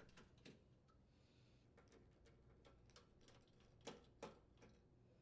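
Near silence, with a few faint clicks from a screwdriver loosening the screws on an oven door's inner panel; the clearest two come near the end, a little under a second apart.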